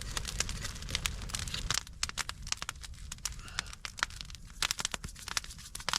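Campfire coals crackling with irregular sharp pops, over a low rumble that stops a couple of seconds in.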